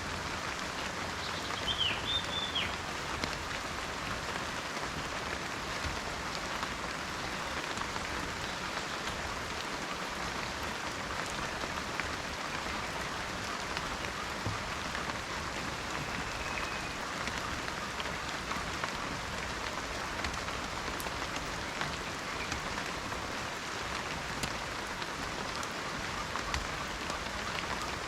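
Steady rain falling in a forest, a dense even patter. A bird gives a brief chirp about two seconds in, and a faint short whistle sounds about halfway through.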